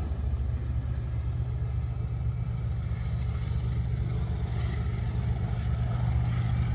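Egyptian Railways ES30ACi diesel-electric locomotives running past, a steady low engine drone.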